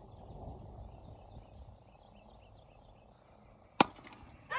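A single sharp crack of a wiffle ball striking something hard near the end, over wind rumble on the microphone and faint birdsong.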